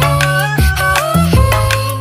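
Sped-up pop song: a high, pitched melody with gliding notes over a heavy bass line and a steady beat.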